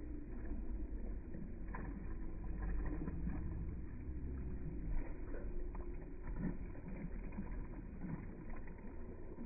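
Pool water splashing and sloshing as children paddle and splash around in life vests, with irregular small splashes over a low steady rumble.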